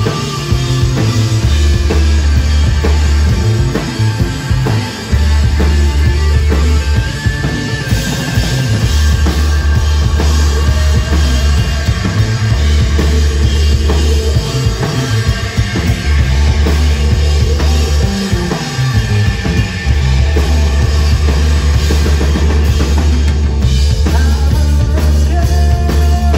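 A psychedelic stoner rock band playing live at full volume: drum kit, bass and guitars, with long held bass notes that change every few seconds.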